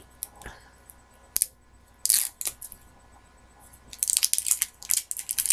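Plastic shrink-wrap being picked at and peeled off a small skincare bottle: a few scattered crinkles and clicks, then a denser run of crackling near the end.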